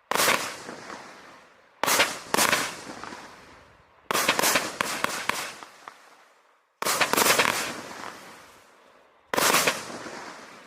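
Vivid Pyrotechnics 'Havoc' firework going off: a series of six loud bangs at uneven gaps of one to three seconds, each trailing off over a second or two, with a quick run of sharper cracks in the middle.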